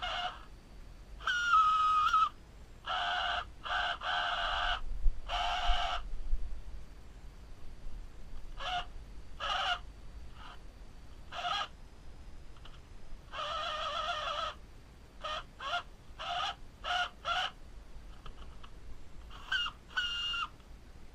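The electric motor and gears of a 1986 New Bright 1957 Chevrolet Bel Air remote-control car whirring loudly in short stop-start bursts, each a fraction of a second to about a second long, as the throttle is pulsed.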